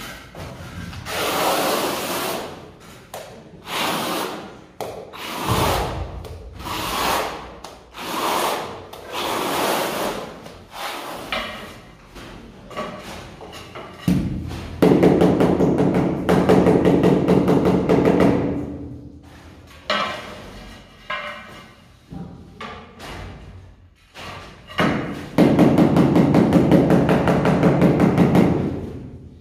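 Notched trowel scraping and combing tile adhesive across a concrete floor in long strokes, about one a second. Then a handheld tile vibrator buzzing steadily twice, for about three seconds each time, as it beds a ceramic floor tile into the adhesive.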